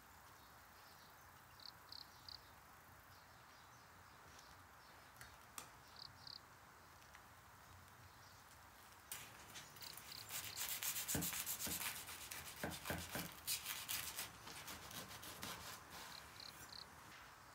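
Kitchen knife sawing through a toasted-bread sandwich: a dry, crunchy rasping of repeated strokes that starts about halfway through and runs for several seconds. Before it come a few faint, high, short chirps in small groups.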